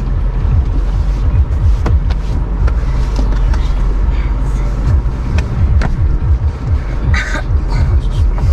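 Jeep driving slowly over a rough off-road trail: low engine and drivetrain noise, with a few sharp knocks from the body and suspension.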